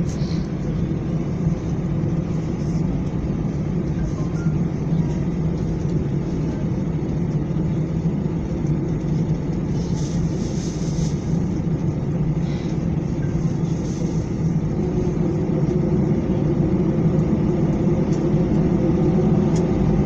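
Steady interior cabin noise of an airliner taxiing after landing: the jet engines run at low power over a low rumble from the undercarriage. It grows slightly louder in the last few seconds.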